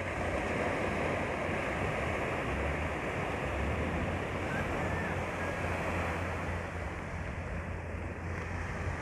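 Small sea waves washing steadily onto a sandy beach, with wind rumbling on the microphone.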